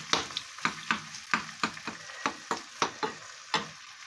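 Diced mushrooms frying and sizzling in a stone-coated non-stick frying pan while a spoon stirs them, tapping and scraping against the pan about three to four times a second. The stirring stops about three and a half seconds in, leaving only the sizzle.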